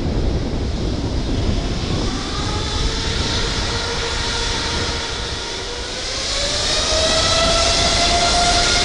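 Boeing 747 freighter's jet engines spooling up as thrust is added: several whining tones rise in pitch over a low rumble, getting louder from about six seconds in.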